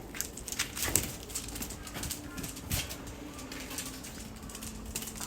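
Faint, low cooing of a pigeon, with a few soft knocks and taps. The cooing is the strange noise that puts the dog on alert.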